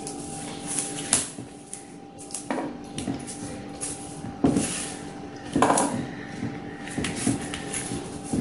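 Hands handling a small taped-up UPS battery on a wooden table: irregular knocks, scrapes and rubs as the battery is shifted and its tape wrapping pressed down, over a steady faint hum.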